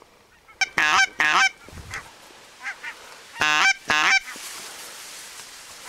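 Goose honks in pairs: two short honks about a second in and two more about three and a half seconds in.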